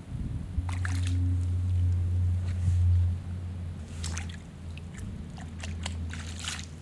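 Water splashing and sloshing at the bank as a small hooked fish is handled by hand in the shallows, in a few short bursts, the last near the end. A low steady rumble runs under the first half.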